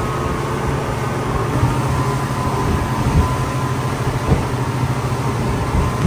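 Twin Honda 225 outboard motors running steadily at cruising speed, a constant low engine drone under a broad rushing noise.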